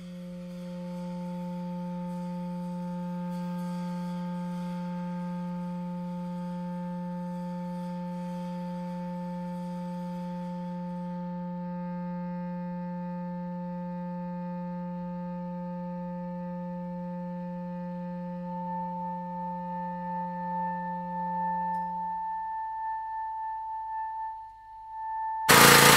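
A single steady, low musical tone with ringing overtones, held for about twenty seconds; near the end the low tone fades while a higher overtone swells and lingers. A loud, rushing noise cuts in abruptly just before the end.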